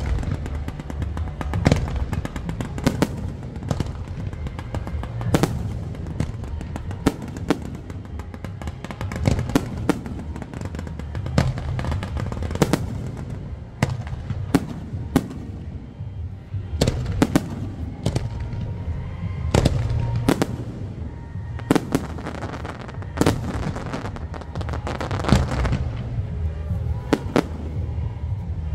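Fireworks display: a rapid, irregular string of sharp bangs from aerial shells and launches, about one or two a second, over a continuous low rumble.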